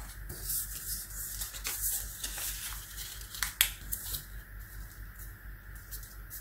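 A sheet of printed paper being folded and its creases pressed flat by hand on a tabletop: rustling and crinkling, with a few sharp ticks, two of them close together about three and a half seconds in.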